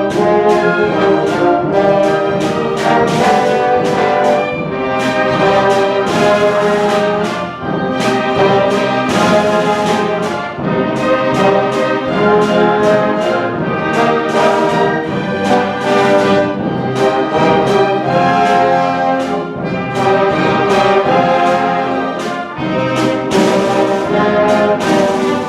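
Symphony orchestra playing festive Hanukkah music, with the brass prominent over the full ensemble in a busy passage of short, accented notes.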